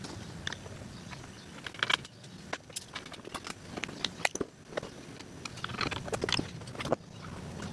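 Irregular light metallic clinks and rattles of tools and small hardware being handled, a few sharper clicks among them, over a low steady background rumble.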